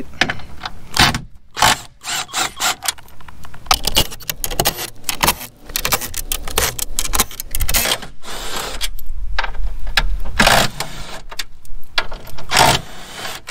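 Cordless driver spinning out the fasteners of a plastic radiator cover plate in a series of short, rattling bursts with pauses between them.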